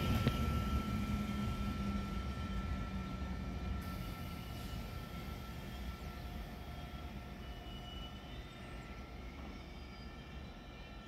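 Italo high-speed electric train running away after passing through the station, its rumble fading steadily. A thin steady whine fades out with it.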